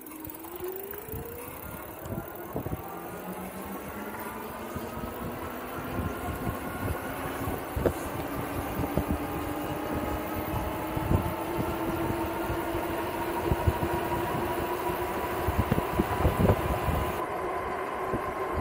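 500 W electric-bike hub motors whining as they accelerate from a standstill, the pitch climbing quickly over the first couple of seconds and then levelling off. Wind rush and scattered knocks from the road run underneath.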